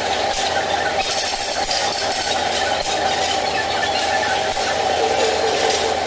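Steady machinery noise with a constant hum, broken now and then by faint metallic clinks.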